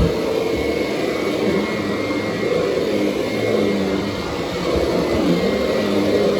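Kirby upright vacuum cleaner running steadily with a constant motor drone, its power-driven brush roll working the carpet on the bullnose of a stair.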